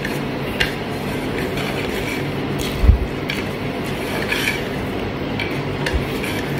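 Close-up eating sounds: chewing chicken adobo and rice with scattered soft mouth clicks and fingers working rice on a plate, over steady background noise. A single low thump just before halfway through is the loudest sound.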